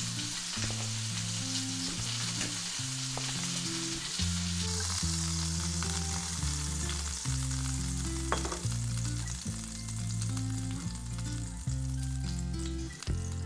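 Beef steak sizzling as it fries in a pan: a steady hiss that thins out about halfway through. Under it runs background music with low synth notes stepping in pitch every half second or so.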